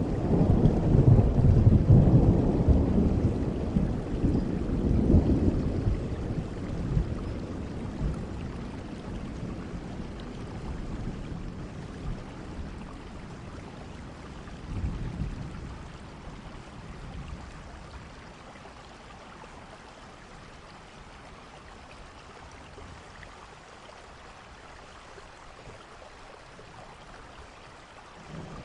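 Steady rain with a long roll of thunder that fades away over the first several seconds, and a fainter rumble of thunder about fifteen seconds in.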